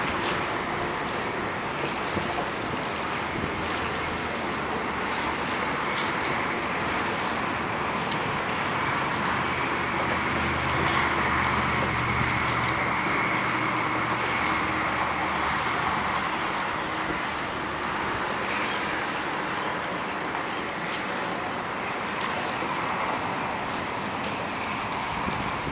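Steady wind buffeting the microphone over open water, with waves washing. A low hum swells from about nine seconds in and fades by about seventeen.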